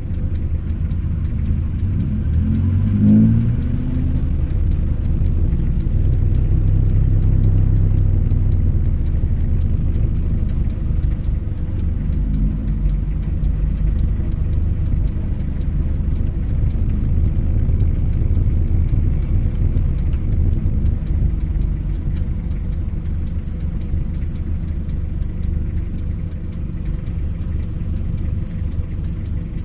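Road vehicle driving on a rough, badly damaged highway: a steady low rumble of engine and road noise, with the engine pitch rising briefly about three seconds in.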